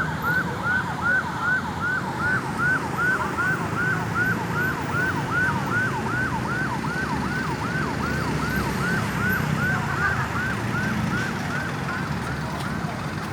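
Ambulance siren sounding a rapid yelp, a quick rise and fall repeating about three times a second, fading out near the end. A steady low rumble of road traffic runs underneath.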